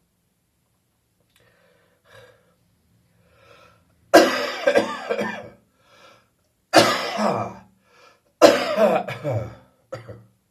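A person's coughing fit from catarrh left over after bronchitis, with phlegm coming up. A few quiet breaths, then three loud bouts of several coughs each, starting about four, seven and eight and a half seconds in, and a short last cough near the end.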